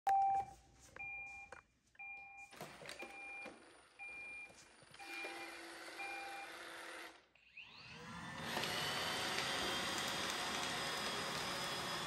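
Robot vacuum cleaner beeping about once a second. About seven seconds in, its motors spin up with a rising whine and then run steadily as it sets off cleaning.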